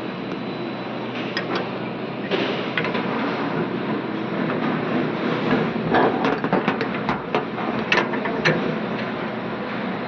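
Sharp metallic clicks and knocks from a copper refrigerant pipe and its brass flare nut and fittings being handled. The knocks are scattered early, then come in a quick cluster in the second half, over a steady background noise.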